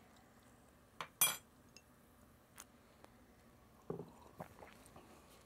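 Drinking glassware clinking a few times in short, sharp knocks, the loudest just over a second in and a small cluster near the end.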